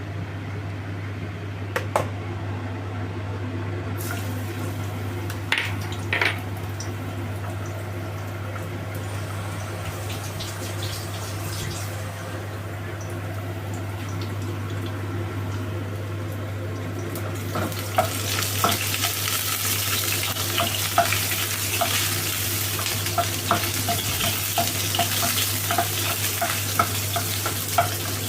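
A steady low hum, with a few utensil clinks in the first part. About 18 s in, oil starts sizzling loudly as garlic goes into the hot pan, and a spatula taps and scrapes against the pan about once a second as it is stirred.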